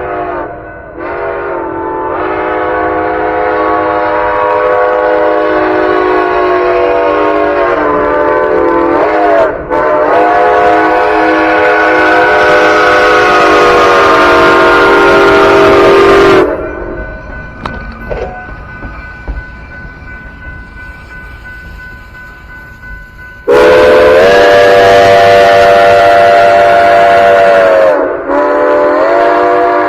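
Steam locomotive's chime whistle blowing loud long blasts, the chord sliding up into pitch at the start of each, with a quieter gap of about seven seconds before two more blasts near the end.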